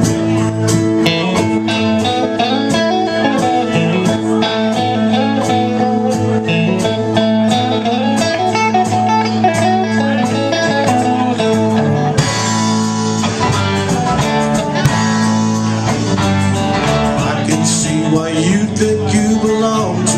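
Live band playing: acoustic and electric guitars over a drum kit, with steady drum and cymbal hits.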